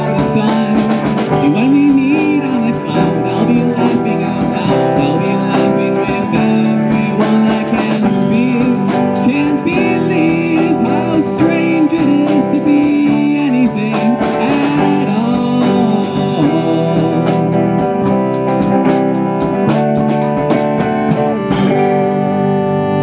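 Live rock band of electric guitar, electric bass, drum kit and keyboard playing with a sung melody line. Near the end a cymbal crash and the band holds a ringing final chord.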